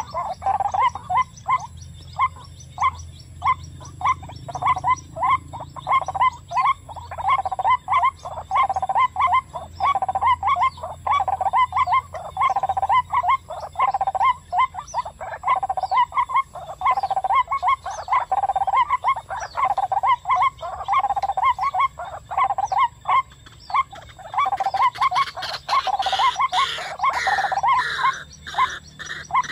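White-breasted waterhen calling: a long run of croaking notes repeated evenly, about three a second. Near the end the calling grows louder and busier, with higher notes joining in.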